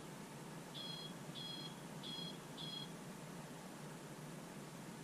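Orp Smart Horn bicycle horn beeping four times in quick succession, heard faintly from inside a car with the windows closed.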